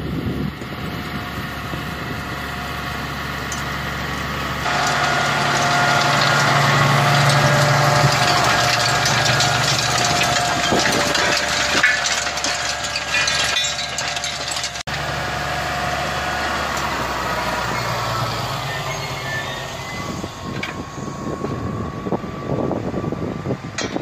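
Massey Ferguson tractor engine working steadily under load while pulling a combination cultivator through dry soil. The sound changes abruptly twice, about 5 and 15 seconds in, where different shots are joined.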